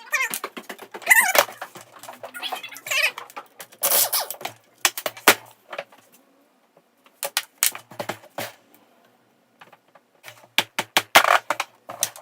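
Metal tools clinking, tapping and scraping on Motobécane six-star moped wheel hubs being taken apart, a quick irregular run of knocks with a couple of brief silent gaps.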